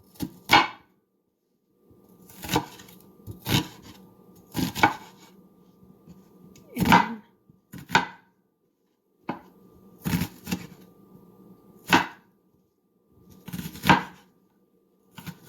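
Kitchen knife dicing an onion on a cutting board: single chopping strikes at uneven intervals, roughly one a second, with short pauses between groups.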